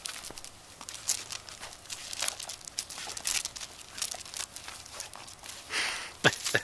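Scattered scuffs, clicks and crinkles of shoes and a husky puppy's paws scrabbling on asphalt strewn with dry leaves as the dog jumps around the person. Near the end comes a louder short sound that falls in pitch.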